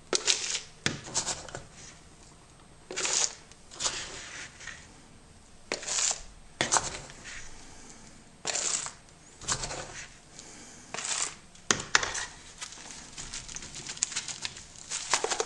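Soil being scooped from a bucket and poured into containers made from 2-liter plastic soda bottles: a series of short, irregular scrapes and rustling pours, some with a sharp click.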